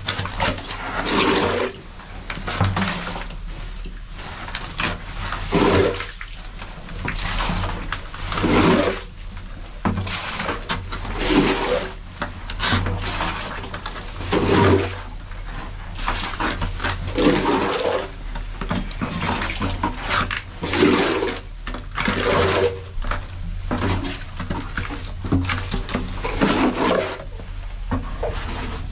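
Oily sludge being scooped by hand from the bottom of an underground oil tank with a plastic scoop and dumped into a bucket, cleaning out the residue: repeated wet scraping, sloshing and splashing about every one to three seconds.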